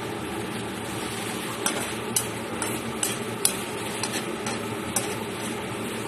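Nigella seeds and green chillies sizzling in hot mustard oil in a kadai, with a metal spatula stirring and clicking against the pan about twice a second from about a second and a half in.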